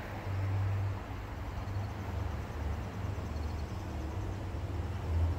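Outdoor ambience: a steady low rumble with faint, short, high chirps repeating in rows.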